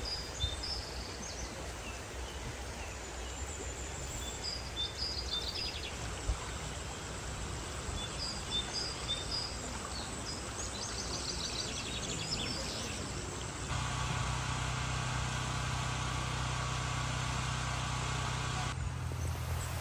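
Outdoor ambience: birds chirping in short repeated phrases over a steady wash of background noise. A little past the middle, a steady low hum comes in and the chirping drops away.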